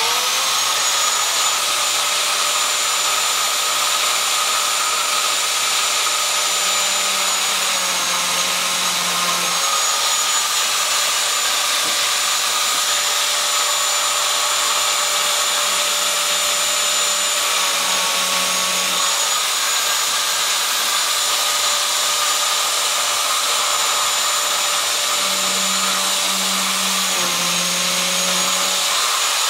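Biscuit jointer's electric motor whining steadily at full speed. Three times, about 8, 18 and 27 seconds in, its pitch sags briefly as the blade plunges into the wood to cut a biscuit slot.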